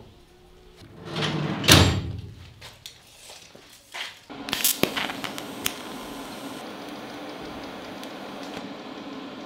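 Steel square tubing scraping and knocking on a metal workbench, loudest about a second in, followed by a few sharp clicks. From about four seconds there is a steady hiss with a low hum, the sound of TIG welding the steel frame.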